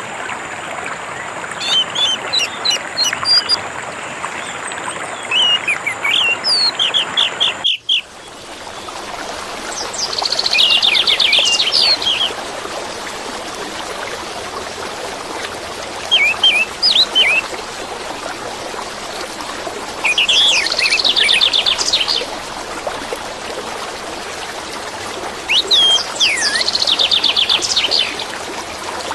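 Orange-headed thrush (anis merah) singing in separate phrases of rapid, high chirps and trills, each a second or two long and several seconds apart, over a steady rush of running water. About eight seconds in, the sound drops out for an instant and the background changes, like an edit in the recording.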